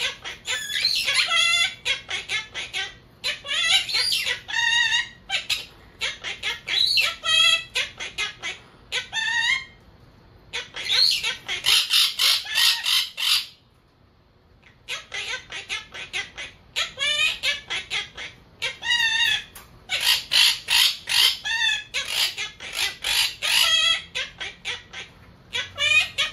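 Monk parakeet chattering and squawking in repeated bursts of rapid, wavering, warbled calls, with short pauses between bursts.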